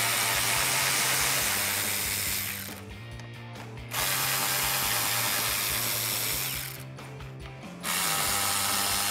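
Cordless electric ratchet spinning out bumper screws in three runs of about three seconds each, with short pauses between them.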